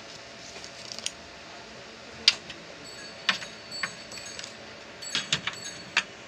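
Handling noise as a hard disk with its SATA cables is fitted into a DVR's metal case: scattered sharp clicks and light metal knocks. The sharpest comes about two seconds in, and a cluster of them comes near the end.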